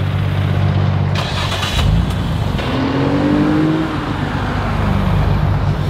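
A car engine idling with a steady low hum. About two seconds in, an engine note rises, holds, then eases off.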